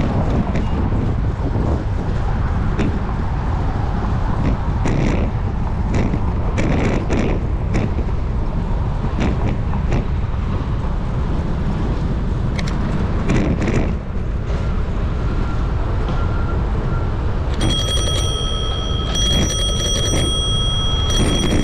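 Wind rumbling on the microphone and rattling of a moving bicycle, with scattered clicks. Near the end a bell rings in several short bursts of a high, clear tone.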